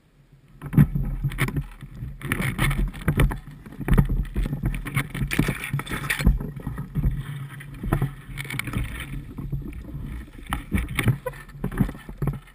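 Spruce branches and brush rustling and scraping against the body-worn camera and gun while pushing through dense undergrowth, with footsteps on forest floor and many short knocks and snaps; it starts about a second in and continues irregularly.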